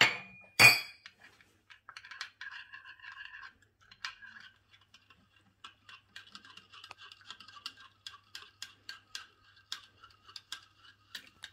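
Metal teaspoon stirring gelatine and hot water in a small glass bowl, clinking against the glass. Two sharp clinks at the start, the second the loudest and briefly ringing, then quick light ticks and scraping as the spoon goes round.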